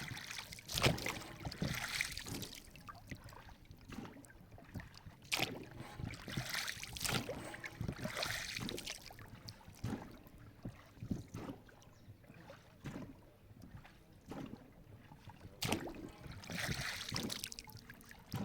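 Water splashing and sloshing in irregular swells, with sharp knocks now and then.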